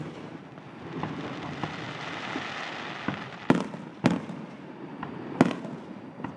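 Fireworks display: aerial shells bursting with sharp bangs, three loud ones in the second half, with lighter pops and a hissing fizz between them.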